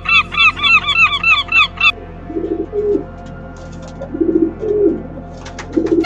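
A flock of gulls calling, a rapid run of short arched cries that stops about two seconds in. After that come a few lower honking calls in short groups.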